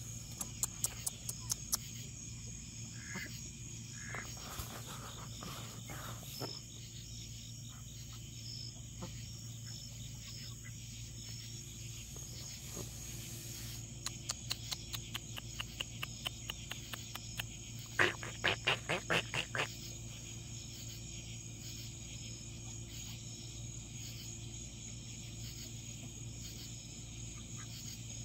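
Outdoor insect chorus, a steady high-pitched trill. There are runs of rapid pulsed calls near the start and again about two-thirds of the way through.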